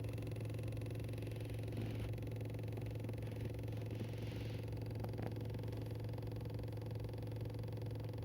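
Steady low drone inside a Toyota Camry's cabin, with a faint click about five seconds in. This is the kind of abnormal noise the owner fears is a fault developing in the car.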